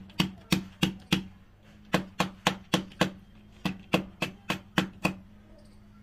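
Immersion water-heater rod's metal coil knocked repeatedly against a concrete floor to shake off cracked hard-water scale. Sharp knocks come about three or four a second in three short runs and stop about five seconds in.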